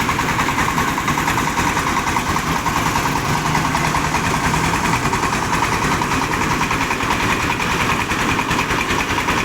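Diesel engine of a mobile rice-hulling machine running steadily at a constant speed, with a fast, even pulse.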